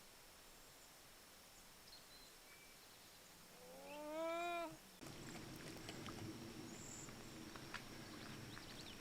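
American beaver giving a single whining call, about a second long and rising in pitch, near the middle; a few faint ticks and rustles follow.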